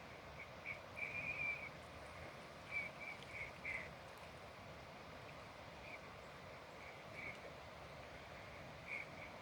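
Birds calling outdoors: short, high chirps in scattered clusters, with a longer call about a second in and a quick run of calls around three to four seconds in, over a steady background hiss.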